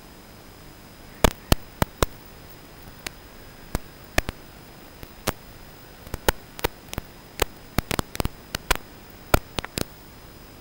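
Steady electronic static hiss with a faint high steady tone. From about a second in until just before the end, it is broken by many sharp, irregular clicks and pops.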